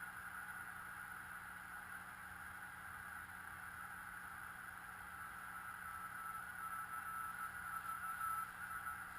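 Receiver audio from a Frog Sound QRP CW transceiver on 40 metres: steady band hiss narrowed by its CW audio filter. From about six seconds in, a faint single-pitched Morse tone comes and goes.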